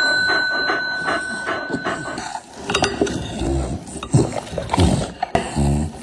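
Hungry dogs at a metal food bowl: the bowl rings with a fading tone for about two seconds over quick clinks, about four a second, then short low animal growls near the end.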